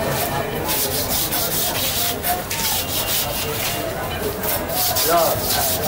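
Knife blade scraping the scales off a large whole fish, in repeated rasping strokes.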